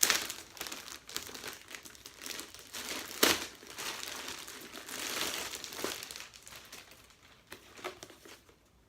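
Packaging around a camera bag crinkling and rustling as it is handled, with one sharper crackle about three seconds in, dying down near the end.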